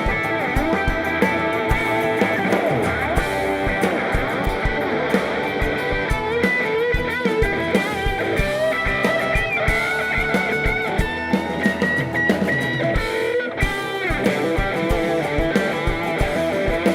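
Live rock band playing an instrumental passage: a lead electric guitar line with bent and held notes over a steady drum beat and bass.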